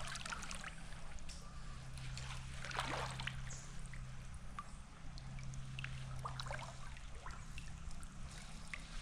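Faint river water trickling and splashing, with scattered small clicks over a steady low hum.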